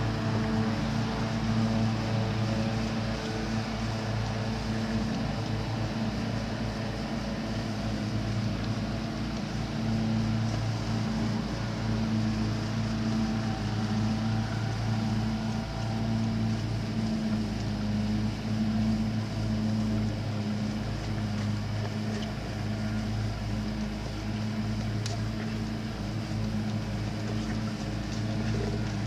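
A steady low motor hum with overtones, holding an even level throughout, over a faint haze of wind noise.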